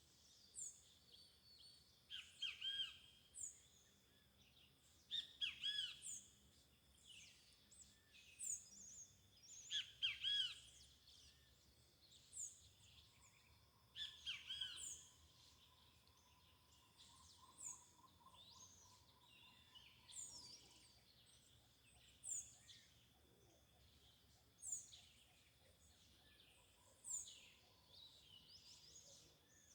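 Birds calling: a short, high note repeated about every two seconds, with louder bursts of lower chirps a few times.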